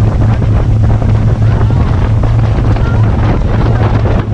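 A motor running steadily with a constant low hum, under loud wind buffeting the microphone.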